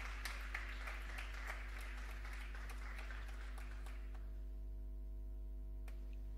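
Theatre audience applauding, a dense patter of many hands that dies away about four seconds in. A steady low electrical hum runs underneath, with a single click near the end.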